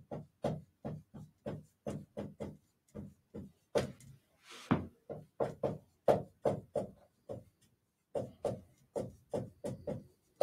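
Marker pen writing on a whiteboard: a quick series of taps and scratchy strokes, about three to four a second, with a short pause about two-thirds of the way through.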